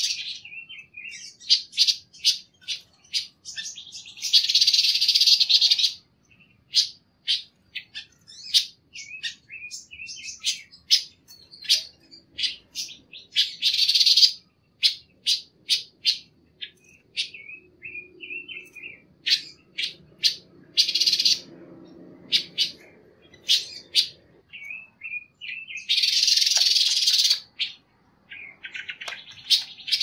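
Silver-eared mesia (panca warna) singing: a rapid run of sharp chirps and short warbled phrases, broken every few seconds by loud, harsh chattering bursts lasting a second or two.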